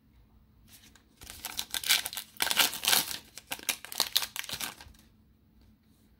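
A shiny foil wrapper of a 2021 Panini Phoenix football card pack crinkling and tearing open by hand, a run of crackles starting about a second in and lasting about three and a half seconds.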